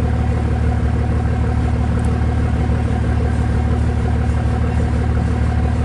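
Steady, unchanging mechanical drone with a low hum beside a long freight train rolling past a grade crossing.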